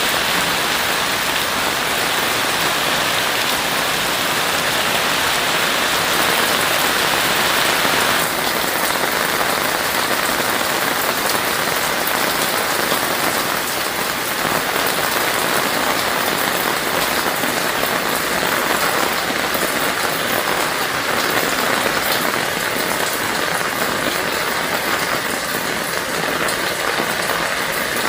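Heavy rain falling steadily, a dense even hiss of rain on a surface. Its tone shifts slightly about eight seconds in.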